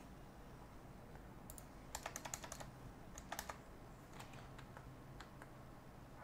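Faint computer keyboard keystrokes, tapped in short scattered clusters of a few keys at a time.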